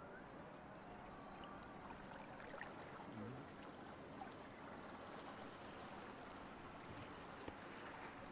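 Quiet open-air ambience by the water: a low, even wash of water noise with faint distant voices and a few small ticks. No motor sound stands out.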